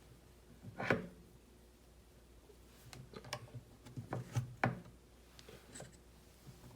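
Small plastic RC kit parts being handled and fitted together, giving scattered clicks and light knocks. The loudest comes about a second in, and a quick run of them follows around three to five seconds in.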